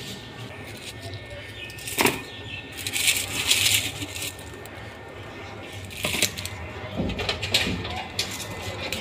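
Onions being taken by hand from a plastic basket and dropped into a plastic bowl: rustling of papery onion skins, with a few separate knocks of onions against plastic.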